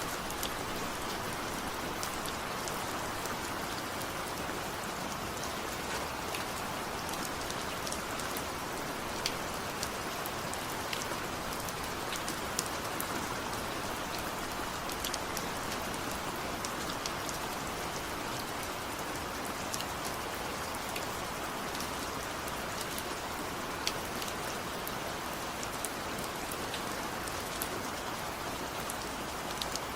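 Steady rain falling, an even hiss with many separate drops ticking sharply on a hard surface.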